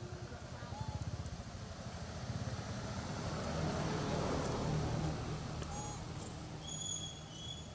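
Engine of a passing motor vehicle, growing louder to a peak about halfway through and then fading.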